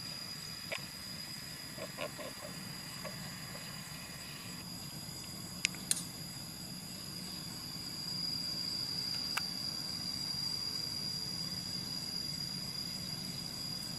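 Outdoor ambience: a steady high-pitched insect drone over a low rumble, with a few faint clicks.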